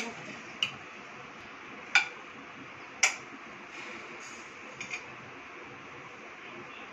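Metal spoon clinking against a plate while scooping rice: four sharp clinks over the first three seconds, then two softer ones about five seconds in.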